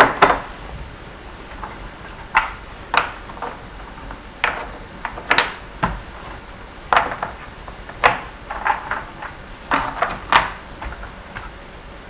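Small blocks being picked up and set down into the slots of a formboard in quick succession: a string of irregular knocks and clacks, sometimes two close together, roughly one to two a second.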